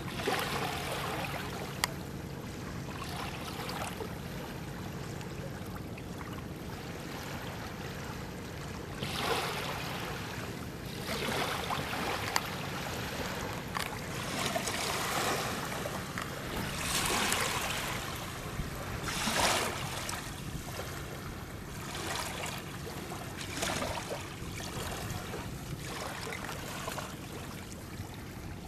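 River water splashing and lapping around a small wooden fishing boat, with several louder surges of splashing in the middle.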